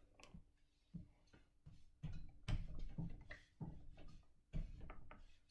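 Handling sounds at an ironing board: a steam iron set down and pressed onto fabric, with irregular soft knocks and fabric rustling.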